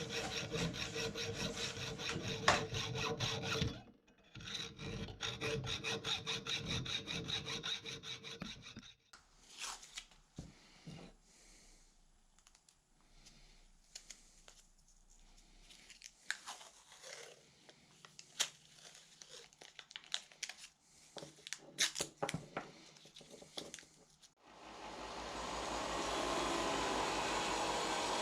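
Hand saw cutting off the pins that stick out of a knife handle, in quick rhythmic back-and-forth strokes, with a brief pause about four seconds in. The sawing stops about nine seconds in, followed by scattered light clicks and handling knocks. A steady motor-like noise starts near the end.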